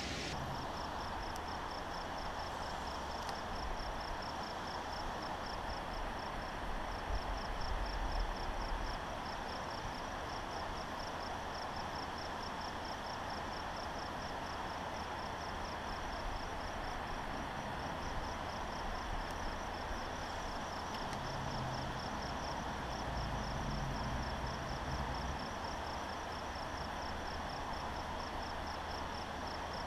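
An insect chirping in a steady, even rhythm, a few high-pitched chirps a second, over a soft background hiss. A low rumble swells now and then.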